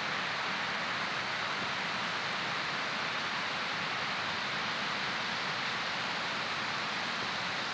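Steady, even rushing of running water.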